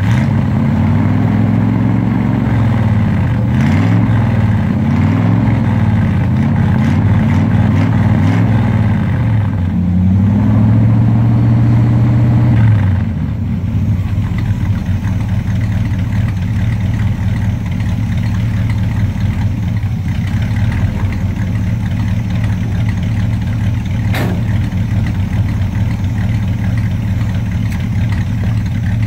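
1979 Dodge D300 truck's engine, fitted with a new Edelbrock Performer 600 cfm four-barrel carburetor, revved up and down several times and held at higher revs for a couple of seconds, then dropping back to a steady idle about 13 seconds in.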